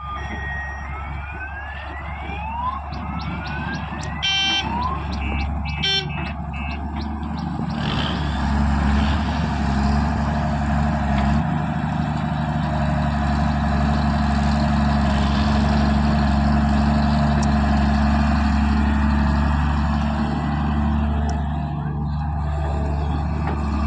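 A vehicle engine running steadily with a low drone. In the first seven seconds it is overlaid by a string of rising whistle-like sweeps and two short pitched tone clusters.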